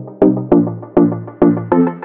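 Background music of short, repeated pitched notes, about three a second, each starting sharply and fading.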